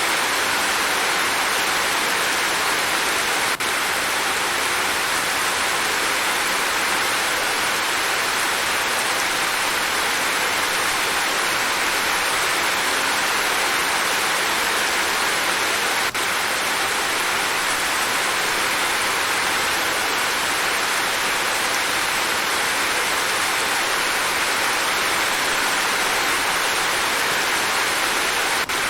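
Heavy monsoon rain falling steadily, a dense even hiss without separate drops standing out.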